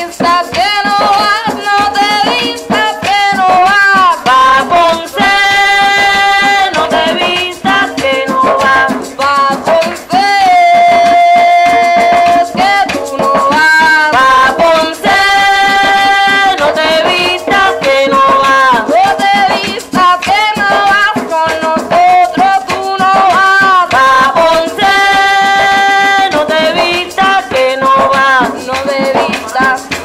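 Live Puerto Rican bomba music: a singer's voice over barrel drums (barriles) and a rattling maraca, with a long held sung note about ten seconds in.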